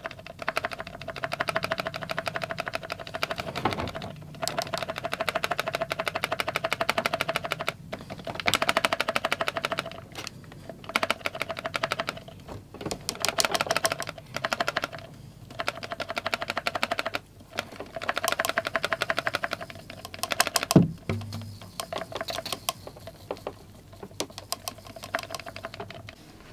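Handheld electrostatic static-grass applicator buzzing with a fast, even crackle as it is shaken over the scenery. It runs in spurts of a few seconds that stop and start again, with a single thump about 21 seconds in.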